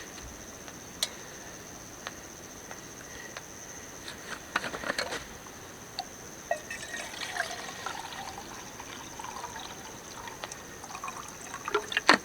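Liquid trickling, with scattered clicks and knocks, over a steady high-pitched hum.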